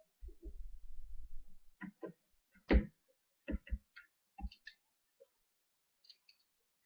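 Hand-held scrapbooking hole-punch and eyelet-setting pliers closing on a paper sheet: a low rumble of handling, then a series of sharp clicks and snaps, the loudest a little under three seconds in.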